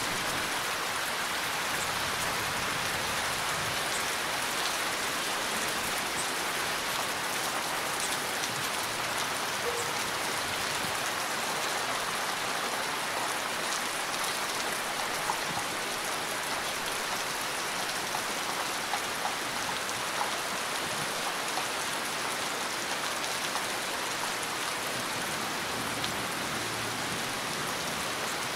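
Heavy rain falling steadily: a dense, even hiss with scattered sharper ticks of single drops.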